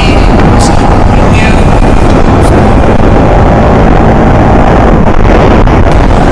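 Bajaj Pulsar NS 200's single-cylinder engine running steadily while the motorcycle is ridden, loud and dense.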